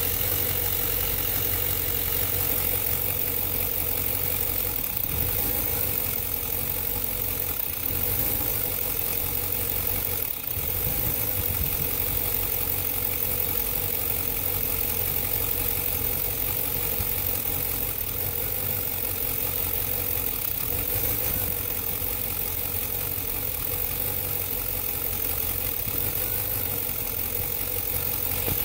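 2003 Chevrolet Suburban's Vortec V8 idling steadily, with a brief dip about ten seconds in; the engine is one that the owner says runs bad on a cold start.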